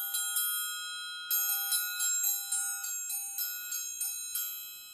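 Triangle struck repeatedly from the inside with a metal beater, about four strokes a second, its many high overtones ringing on. After a short break about a second in the strokes resume, then stop about four and a half seconds in, leaving the ring to fade.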